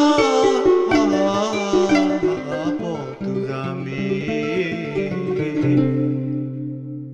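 Burmese arched harp (saung gauk) plucked in a run of notes, accompanying a man singing a Burmese classical song with wavering held notes. The voice is strongest in the first half; a low harp note rings on steadily near the end.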